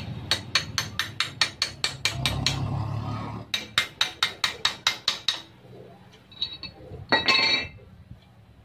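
A hammer tapping a steel socket that sits on a ball bearing in a bench vise, with quick, evenly spaced light strikes, about five a second, in two runs with a pause between them. Near the end comes a short metallic clatter.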